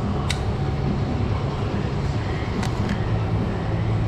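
A steady low mechanical drone from an unseen running machine, with three light sharp clicks from hand work on the quad's clutch cable end as it is worked into place.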